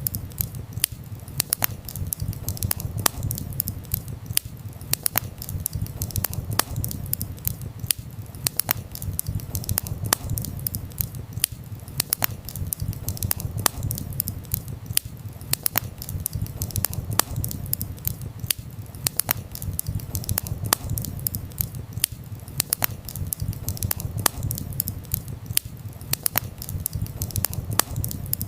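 Burning firewood in a campfire crackling, with many irregular sharp snaps and pops, several a second, over a steady low rumble.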